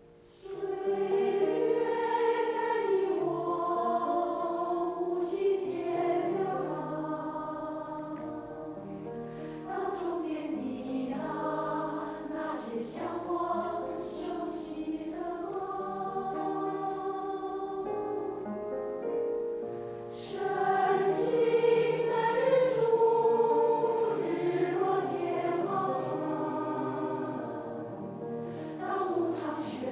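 A choir singing a song together, coming in about half a second in.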